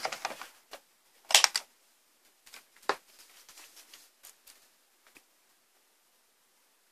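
Handling noise of multimeter test probes and their leads: a sharp click about one and a half seconds in, another about three seconds in, and light ticks and rustles between them.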